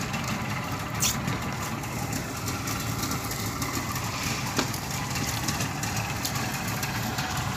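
Fishing boat's engine running steadily, a constant low drone, with a couple of short sharp knocks about a second in and again past the middle.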